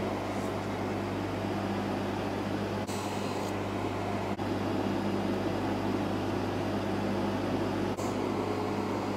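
Bench polishing motor running steadily with a low mains hum and whir, a felt polishing wheel spinning as a watch case is worked against it.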